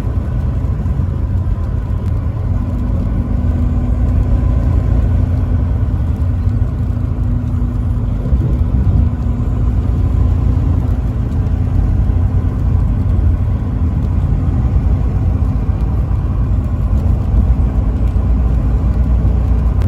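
Steady low rumble of a vehicle driving on a highway: engine drone and road noise.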